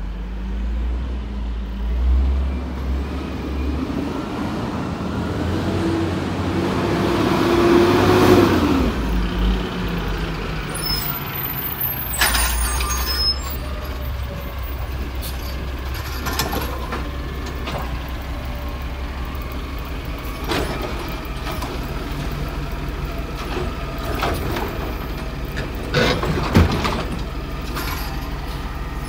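A cab-over garbage truck's diesel engine rises in pitch as the truck comes up and then falls away as it slows. Its air brakes hiss about twelve seconds in, and the engine then runs steadily at a stop, with occasional clanks, one sharp clank near the end.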